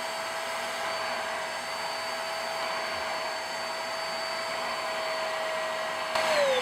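Vax SpotWash carpet cleaner's suction motor running steadily while its brush tool is worked over stair carpet. A moment before the end it gets briefly louder, then is switched off, its pitch falling as the motor winds down.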